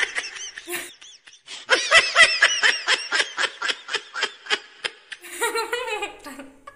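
A woman laughing: a rapid string of short laughs, about five a second, starting about two seconds in and trailing off near the end.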